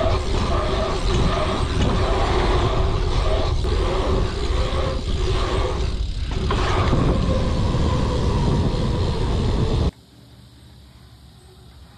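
Mountain bike rolling fast around an asphalt pump track: tyre roar and heavy wind rumble on the rider's camera microphone, swelling and easing every second or so as he pumps through the rollers. It cuts off abruptly near the end to a quiet outdoor background.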